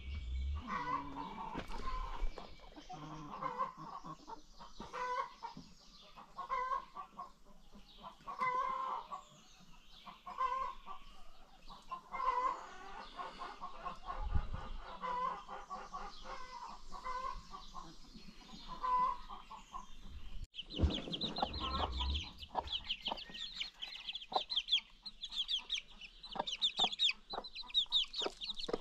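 Chickens clucking in short repeated notes; about two-thirds of the way in the sound changes abruptly to baby chicks peeping rapidly and continuously in high notes, with scattered short clicks.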